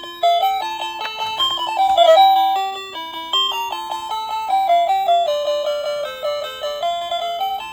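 Simple electronic melody of short, plinky bell-like notes stepping up and down at a few notes a second, of the kind played by a toy high-speed train's sound chip.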